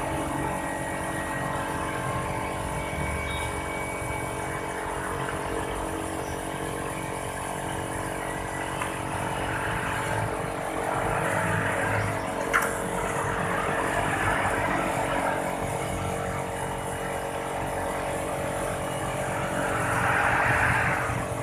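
Car engine running with its piston-type air-conditioning compressor working: a steady mechanical growl with many held tones, one sharp click about twelve seconds in and a louder rush near the end. This is the 'ngorok' compressor noise, which the uploader puts down, among other causes, to worn balls or metal bushings inside the compressor.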